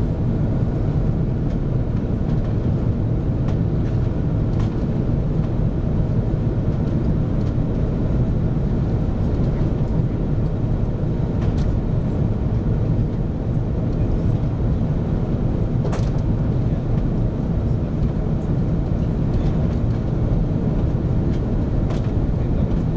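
Steady low rumble of jet engines and rushing air inside the cabin of an Airbus A340-600 airliner in flight, with a faint tick about two-thirds of the way through.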